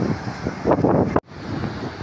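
Wind gusting on the microphone over outdoor street noise, cut off suddenly about a second in, then a quieter steady rumble.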